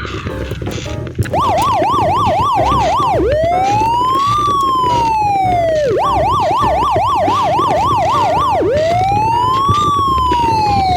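Toy fire engine's electronic siren. It starts about a second in and alternates between a fast yelp, about three rises a second, and a slow wail that rises and falls over two to three seconds. A steady low rumble runs underneath.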